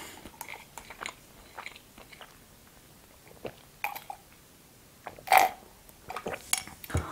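Close-miked mouth sounds of someone eating: soft chewing with scattered wet clicks and lip smacks as a small spoon is licked, with a louder smack about five seconds in.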